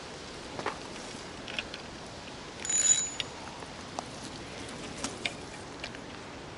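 A spinning reel being worked for a cast: a few light mechanical clicks and a short louder whirr about three seconds in. Underneath is a steady rush of water.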